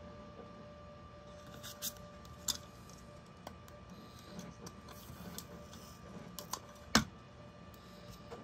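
Hands working masking tape on paper over a cutting mat: quiet handling with scattered small clicks and taps, the sharpest about seven seconds in.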